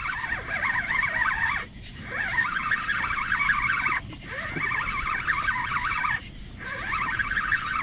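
Chorus of frogs calling at night, a dense high chatter that drops out briefly about every two seconds and starts up again.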